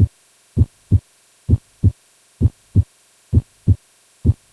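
Normal human heart sounds: the first heart sound (S1, "lub") and second heart sound (S2, "dub") as short, low thumps in regular pairs, about 65 beats a minute, with silence between beats.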